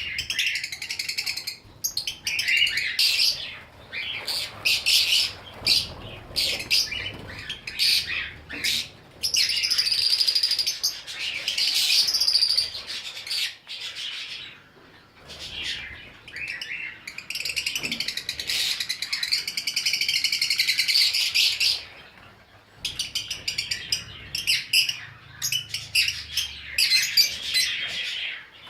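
Ornamental cage birds chirping in rapid, high-pitched runs, with short lulls twice.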